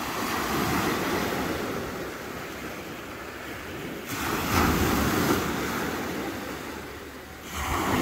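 Sea waves breaking on the shore: a steady wash of surf, with one wave crashing about four seconds in and another near the end.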